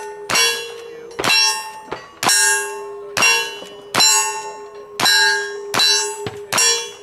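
Shots fired in quick succession, about ten of them, most followed at once by the clang and ring of a hit steel target.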